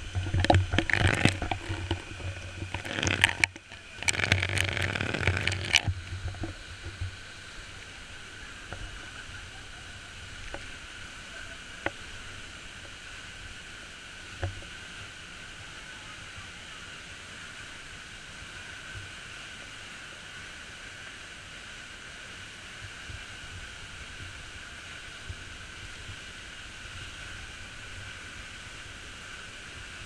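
Waterfall plunging into a pool, a steady rushing roar. During the first six seconds loud, irregular buffeting on the microphone covers it.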